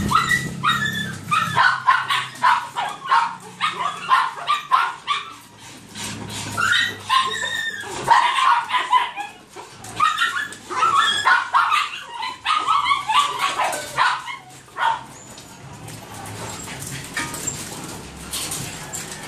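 Several small caged dogs yipping, barking and whining in quick, overlapping calls at feeding time as a bowl of dry food is brought to them; the calls die down over the last few seconds.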